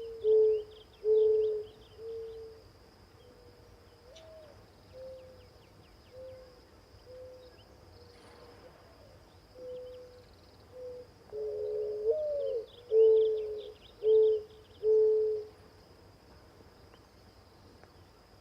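Mourning dove cooing. A full song comes about twelve seconds in: one note that slides up and back down, then several long, low, even coos. Fainter single coos run through the middle, with small birds chirping high in the background.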